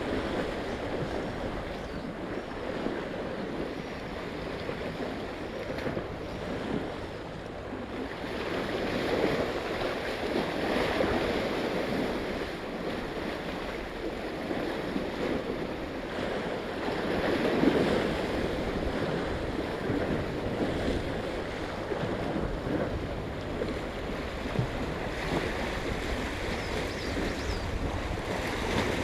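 Sea waves washing against a rocky shore, swelling louder about ten seconds in and again a little past the middle, with wind buffeting the microphone.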